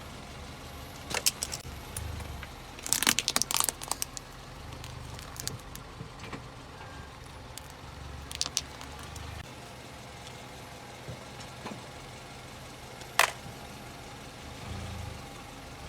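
Car engine running low and steady as the car rolls over things and crushes them, with scattered sharp cracks and crackles: a dense run about three seconds in and a loud single crack near thirteen seconds.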